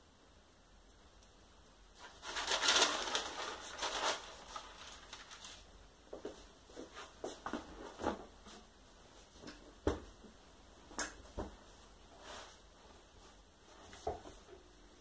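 Felt press blankets and paper being handled over an etching press bed: a burst of rustling and flapping about two seconds in, then scattered soft taps and knocks as they are laid flat.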